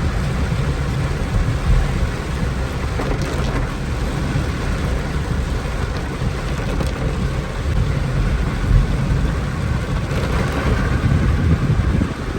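Heavy rain with a vehicle moving through it on flooded roads: a steady rushing noise over a low rumble.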